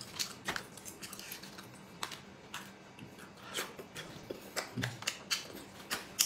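Eating a fried chicken cutlet: a string of short, sharp, irregular crunches and clicks as it is bitten and chewed.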